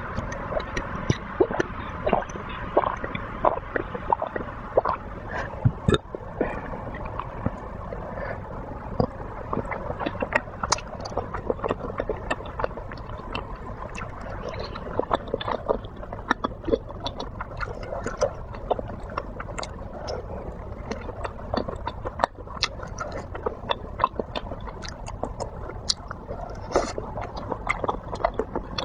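Close-miked eating of cheese balls in luosifen soup: wet chewing and slurping, with many small clicks and taps throughout.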